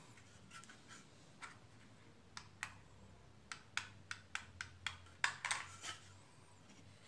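Faint series of short pencil scratches on wood, about a dozen strokes that come faster in the second half, as a joint is marked out.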